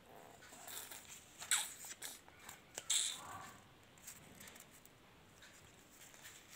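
Toy paper banknotes rustling and crinkling as they are handled and leafed through, in short bursts mostly in the first half, then fainter.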